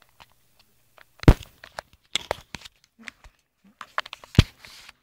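Close handling of a BB gun and its magazine: a run of sharp plastic clicks and knocks with some rustling, the two loudest knocks about a second in and near the end.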